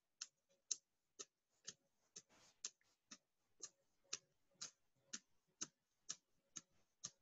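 Soft, steady hand taps, about two a second: hands with the fingers interlaced struck together at the webbing between the fingers, as a self-massage tapping exercise.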